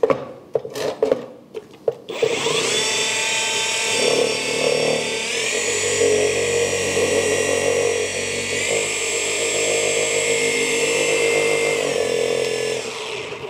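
Cordless polisher spinning a polishing pad in a pad washer to clean it. The motor whine starts about two seconds in after a few light knocks, steps up in pitch a few seconds later, drops back partway through, and winds down shortly before the end.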